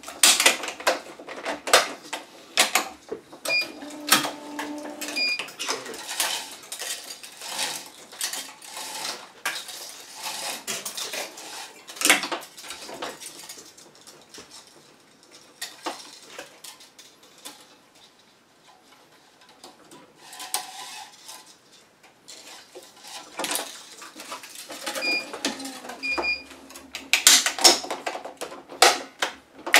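Tennis racket being strung on an electronic stringing machine: clicks, knocks and metallic clatter of clamps and tools, with the rub and swish of 1.24 mm Gamma Moto string drawn through the frame. Short beeps from the tensioner come a few times near the start and again near the end, with a quieter stretch in the middle.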